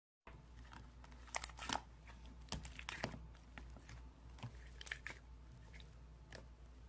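Mixed slime being squished and worked by hand, giving off irregular crackling clicks and pops over a steady low hum.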